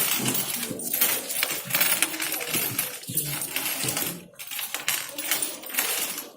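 Loose coins clinking and clattering as they are handled and counted, with many quick irregular chinks.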